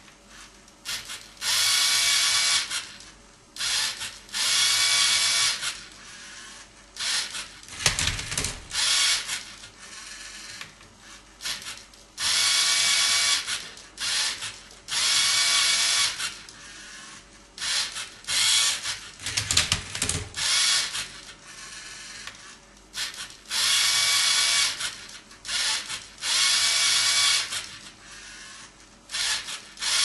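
LEGO Mindstorms NXT servo motors whining through their plastic gear trains in repeated bursts of a second or so, as the robot tilts and twists a Rubik's cube, with plastic clicking between moves and a couple of heavier knocks.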